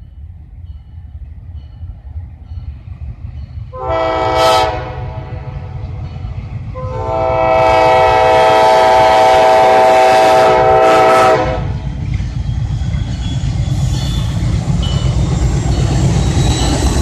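Diesel freight locomotive sounding its air horn for a grade crossing: a short chord about four seconds in, then a long blast of about four and a half seconds. The low rumble of the diesel engines underneath grows louder as the locomotives draw near and come alongside at the end.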